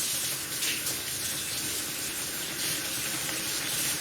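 Kitchen tap running steadily, water streaming into a sink with an even hiss.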